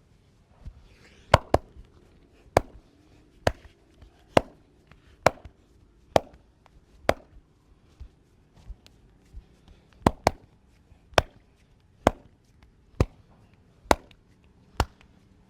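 Sharp hand strikes on the body in percussive massage, about one a second and fairly even, with a quick double strike now and then.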